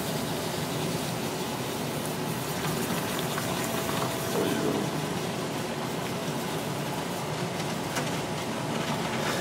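Molten aluminium poured into a sand mold that is too damp, with a steady hiss as the moisture in the sand flashes to steam.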